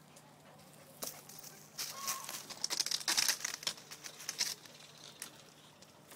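Leaves and twigs rustling and crackling in a leafy tree as something pushes through the foliage. It is a dense run of quick crackles, loudest from about two seconds in to past four seconds.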